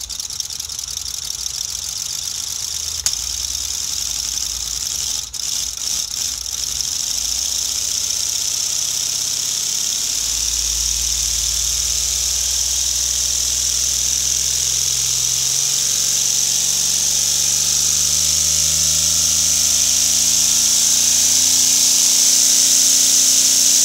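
LEGO pneumatic engine running on compressed air: a steady hiss of air with a rattling mechanical whir that grows gradually louder as it picks up speed. It runs a bit rough at first, with a few clicks near the start, as its cylinders and valve switches stick slightly after lubrication with silicone spray.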